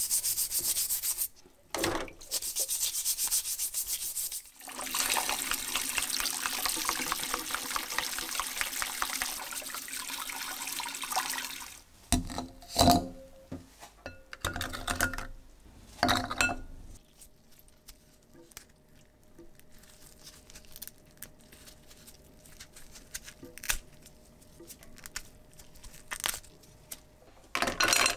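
A toothbrush scrubbing scallop shells in a sink: scratchy bristle scrubbing in a few long stretches. About halfway through come several hard clacks and knocks of the shells against a glass bowl. After a quiet stretch with faint taps, the shells are rubbed and clattered together in the bowl near the end.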